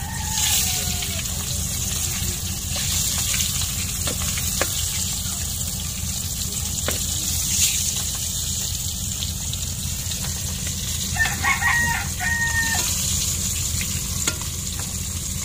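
Breaded fish frying in oil: a steady sizzle with a few light clicks of a utensil. A rooster crows once about eleven seconds in.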